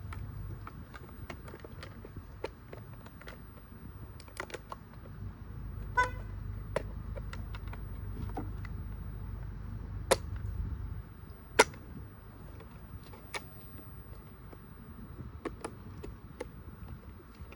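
Scattered light clicks and taps of fuel pump parts being handled and pressed together by hand as the pump and filter are fitted into the pump basket, with a short ringing tap about six seconds in and a low hum between about five and eleven seconds.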